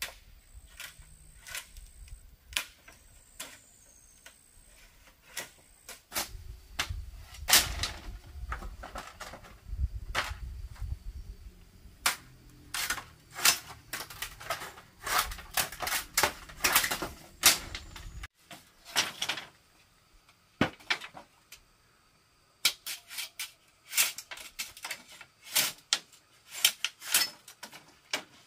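Hand tools knocking and tapping on bamboo: sharp, irregular strikes, often in quick runs, with a low rumble under the first two-thirds and a short lull after about eighteen seconds.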